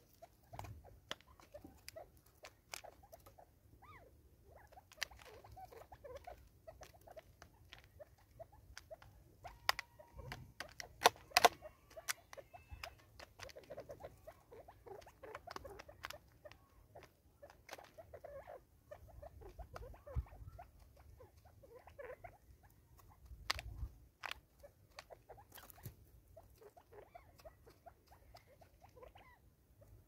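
Francolins pecking seed from a plastic container on a wooden stump: irregular sharp taps and clicks of beaks on plastic and wood, loudest a little before halfway.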